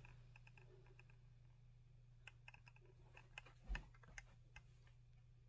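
Near silence: a low steady hum with faint scattered clicks and taps of handling, and one soft knock a little before four seconds in.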